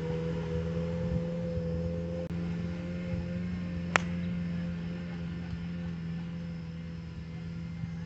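A golf club strikes a teed-up ball with one sharp click about four seconds in, over a steady droning hum that holds a low tone and a higher tone.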